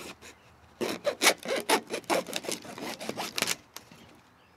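Hacksaw cutting through corrugated plastic drain pipe, a run of quick back-and-forth rasping strokes from about a second in until near the end.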